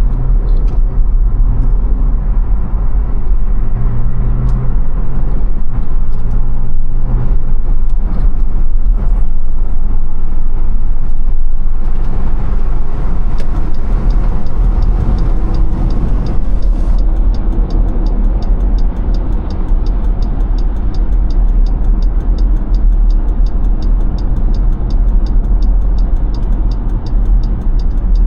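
Steady low rumble of a car driving at speed, road and engine noise heard inside the cabin. About two-thirds of the way in, a fast, regular faint ticking joins it.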